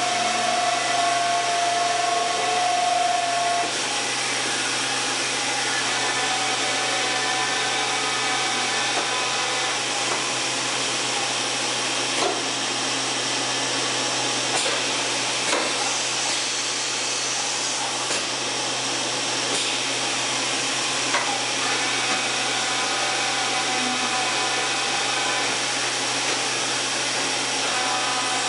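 1995 Fadal 6030HT CNC vertical machining center running with its axes traversing. A steady whirring hiss carries machine whines that change pitch as the table and spindle head move, with a few light clicks in the second half.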